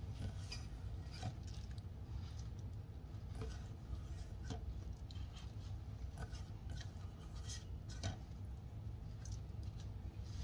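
Faint handling sounds: fingers scraping wet grated cucumber off a stainless steel bowl and the rustle of a paper towel, a scatter of soft clicks and scrapes over a low steady hum.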